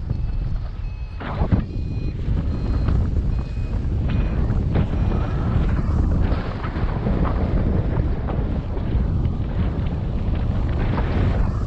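Wind rushing over the microphone in flight under a paraglider, with a variometer giving short beeps at a few changing pitches, its climb signal.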